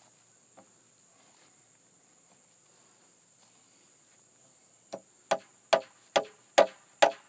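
Hammer driving a 3.5-inch galvanized nail into a wooden fence board: after a quiet start, about six sharp, evenly spaced strikes at a little over two a second, beginning about five seconds in.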